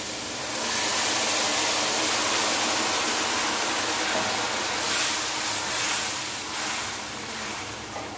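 Water poured into a metal kadhai of hot ghee and roasted semolina, which sizzles and hisses hard as it boils up; the hiss eases a little near the end.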